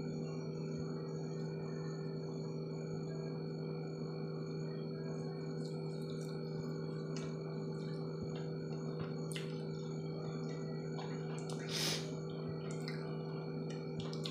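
A steady background hum, with scattered faint crisp clicks and one louder crunch about twelve seconds in, from biting into and chewing crisp-coated fried chicken.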